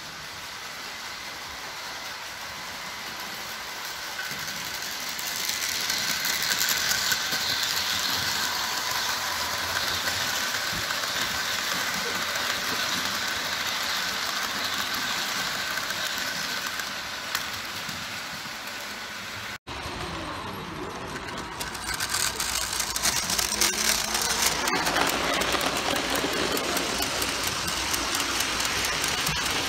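Model trains running on track: the steady whir and rolling of small metal wheels on rails, growing louder about five seconds in as a train passes close. After a short break a second train runs, louder, with rapid clicking from its wheels.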